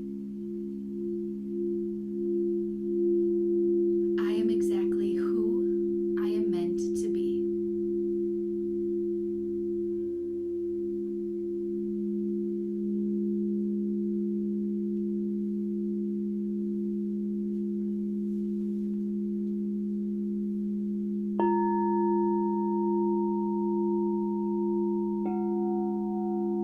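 Singing bowls sustaining low, steady tones that pulse slowly, with a brief higher, wavering sound about four to seven seconds in. A new, higher-pitched bowl is struck near the end, and then another a few seconds later, each ringing on over the drone.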